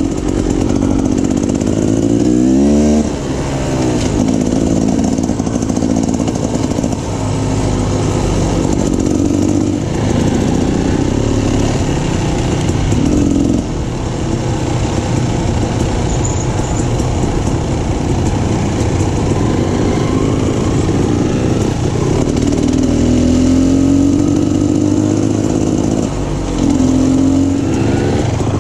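Dirt bike engine revving up and easing off over and over under way on a trail, its pitch rising and falling with the throttle.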